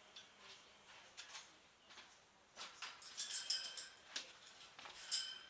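Parrot making short, high squeaky calls and whistles in quick bursts, most of them about three seconds in and again near the end, with a few soft clicks between.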